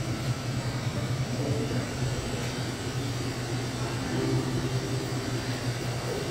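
Steady low mechanical hum with an even hiss of room noise, like air-handling or refrigeration running in a shop interior.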